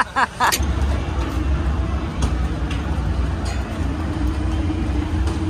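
Steady low electric hum of a handheld tire grooving iron as it cuts tread into a dirt-track sprint car tire, starting just after a few spoken words.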